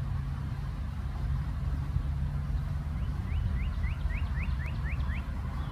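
A songbird sings a quick series of about nine short rising notes, about four a second, over a steady low rumble.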